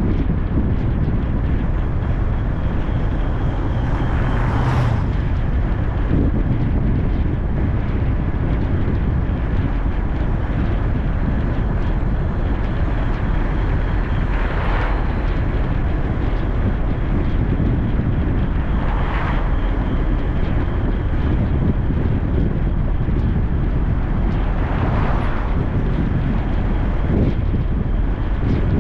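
Steady low road and engine rumble of a car being driven. Four brief swishes stand out above it, about 5, 15, 19 and 25 seconds in.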